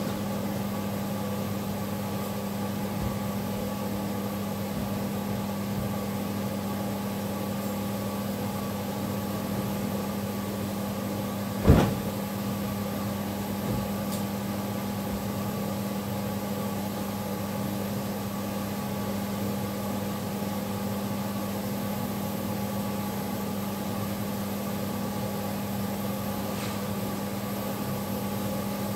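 A steady mechanical hum, with one sharp knock about twelve seconds in.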